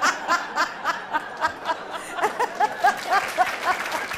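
A woman laughing heartily in a long unbroken run of short 'ha' bursts, about three or four a second.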